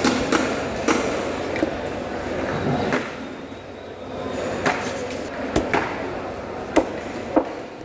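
Large kitchen knife chopping through a big fish's body on a wooden chopping block: about ten sharp, irregularly spaced knocks of the blade striking the wood, with the sharpest pair near the end.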